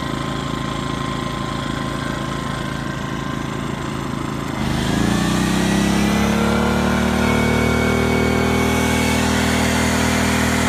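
Small portable inverter generator running steadily. About four and a half seconds in, a hair dryer load comes on with a rushing hiss, and the engine revs up, its pitch rising over several seconds as it picks up the roughly 1,750-watt load.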